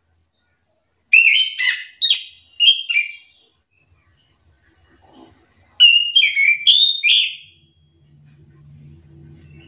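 Chestnut-capped thrush (anis kembang) singing two short phrases of clear, quick whistled notes, four or five notes in each, a few seconds apart. A faint low hum comes in near the end.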